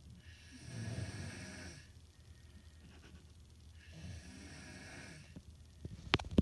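Snoring: two drawn-out snores about three seconds apart. A few sharp clicks follow near the end.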